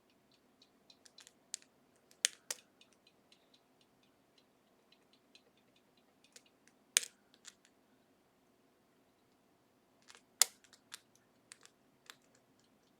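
Small irregular metallic clicks and taps of a lock pick working the spool pins inside an Assa Ruko 500 pin-tumbler lock, with a few sharper, louder clicks about two seconds, seven seconds and ten seconds in.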